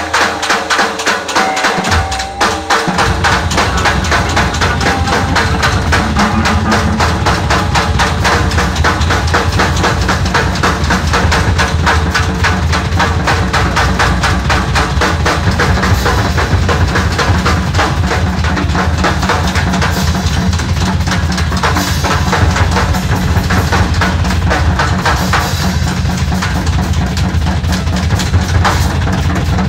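Live noise-rock band playing loudly: fast, dense drumming on drum kits under distorted electric guitars. A heavy low rumble comes in about two and a half seconds in and stays.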